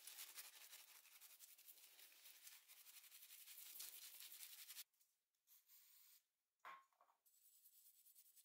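Bristle brush scrubbing greasy metal drill gears: a dense, rapid scratching of quick strokes. It breaks off about five seconds in, a short knock sounds near seven seconds, and fainter brushing on the metal gearbox housing follows.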